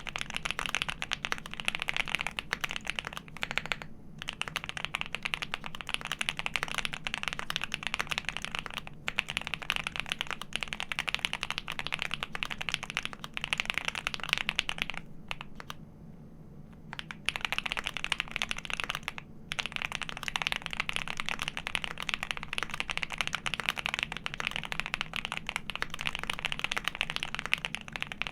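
Fast, continuous typing on a custom mechanical keyboard with lubed Alpaca linear switches on 65 g springs, a PC plate and GMK keycaps: a dense run of keystroke clacks that stops for about two seconds midway, then resumes.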